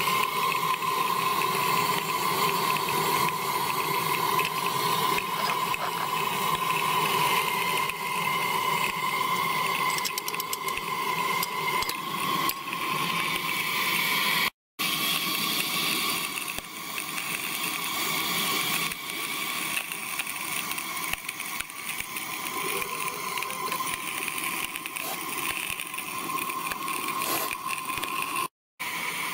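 Metre Maid miniature steam locomotive raising steam on a coal fire: a steady whine and hiss with a few light clinks, broken twice by brief silences.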